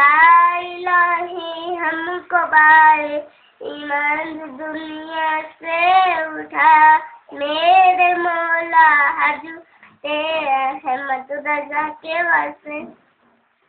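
A child singing a song solo, with held, wavering notes in phrases of a few seconds and short breaths between them.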